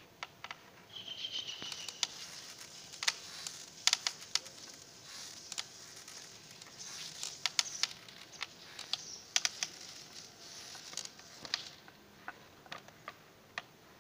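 Metal hand-cranked seviyan press clicking and ticking irregularly as its handle is worked to push dough through the die. A short high chirp sounds about a second in.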